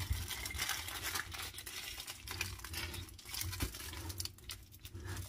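Aluminium foil crinkling in an irregular run of crackles as a foil-wrapped loaf is rolled and its ends are pinched and twisted shut.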